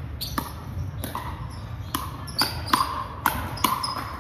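Pickleball paddles hitting a hollow plastic ball in a fast rally: a string of sharp pops, some ringing briefly in the large hall, coming quicker from about halfway through.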